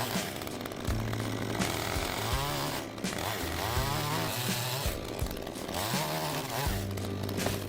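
Chainsaw running and cutting wood, its engine pitch rising and falling several times as it revs.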